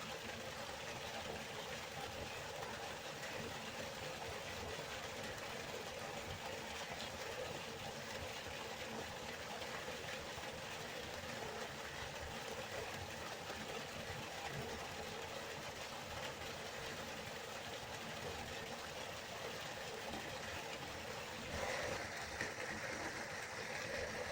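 Waterfall: water falling steadily, an even, unbroken rush of noise. A few seconds before the end the sound turns slightly brighter.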